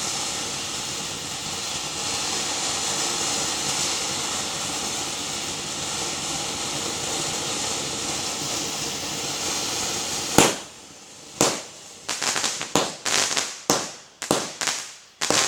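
Firework spraying with a steady hiss for about ten seconds. Then a sharp bang, followed by a quick irregular run of cracks and pops.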